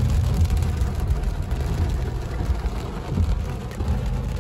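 Inside a car driving slowly on a wet road in heavy rain: a steady low rumble of engine and tyres, with rain falling on the car.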